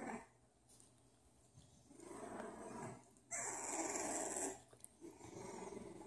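English bulldog growling in three rough, breathy bursts of about a second each, the middle one the loudest.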